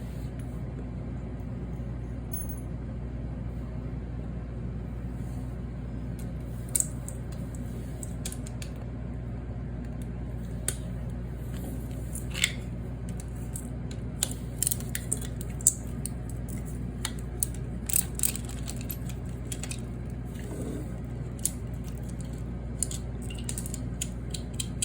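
Scattered light metallic clicks and clinks of hand tools on a long bolt during the teardown of a condenser fan motor. The clicks come quicker and closer together near the end, over a steady low hum.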